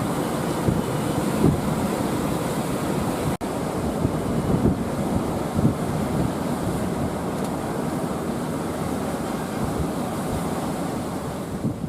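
Sea surf washing onto a beach, with wind buffeting the microphone in low, irregular thumps.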